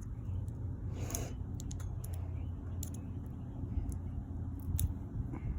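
Hands working a disposable vape apart, with sharp plastic clicks and a short scratchy rustle about a second in, over a steady low rumble.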